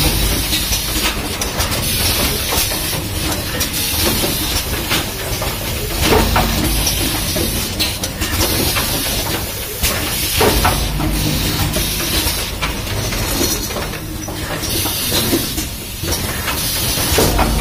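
Automatic rapid test kit assembly machine running: a steady hiss with a low hum, broken by repeated short clicks and knocks of its mechanism about every second or two.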